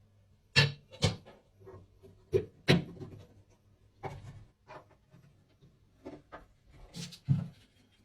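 Irregular knocks and clunks of tools or parts being handled and set down in a workshop, about ten in eight seconds.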